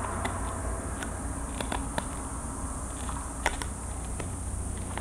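Hobby knife cutting and picking a small hole out of a model airplane wing's control surface: a scatter of small irregular clicks and scratches, the sharpest about three and a half seconds in, over a steady low hum.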